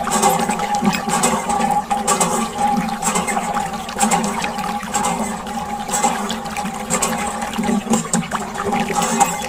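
A steady stream of water from a thin plastic tube splashing onto plastic toy auto-rickshaws and wet sand, with a constant hum underneath.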